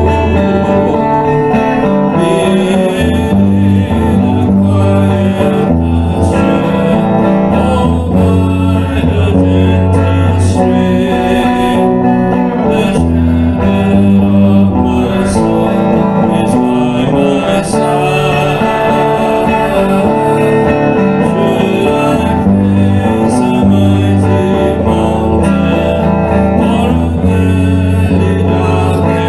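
Electric guitar playing a slow worship song, with a steady bass line underneath.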